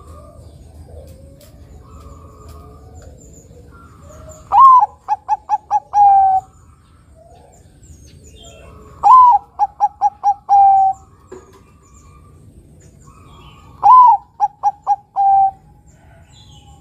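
Zebra dove (perkutut), a Bangkok-bred and local cross, cooing its song three times. Each phrase opens with a loud note that rises and falls, runs into about five quick short coos, and ends on a longer held note.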